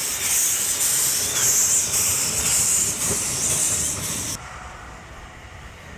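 Narrow-gauge two-cylinder compound steam locomotive moving off with steam blowing from its cylinder drain cocks: a loud hiss that swells and fades with the piston strokes. The hiss cuts off suddenly about four seconds in, leaving the lower rumble of the engine moving away.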